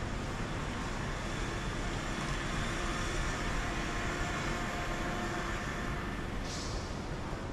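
Steady background noise, a continuous rumble and hiss at an even level, with a short hiss about six and a half seconds in.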